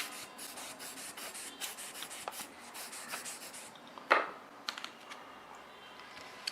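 Cleaning cloth rubbed in repeated quick strokes over camera lens filter glass, followed about four seconds in by a single sharp click of the camera or filter being handled, then a few light ticks.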